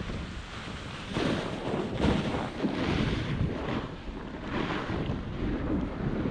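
Wind buffeting the microphone while riding downhill, with the snowboard hissing and scraping over the snow in swelling surges as it turns.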